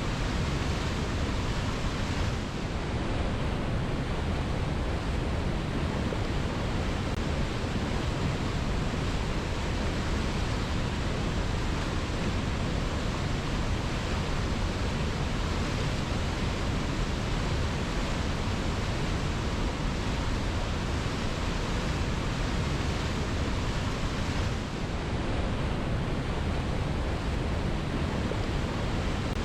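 Waterfall cascading over rocks: a steady, even rush of falling water, heaviest in the low end.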